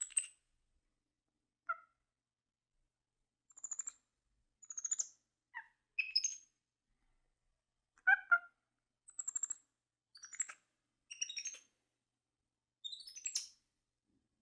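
Capuchin monkey giving a run of short, high-pitched chirps and twitters: about ten separate calls, some with a quick trilling flutter, with pauses between them.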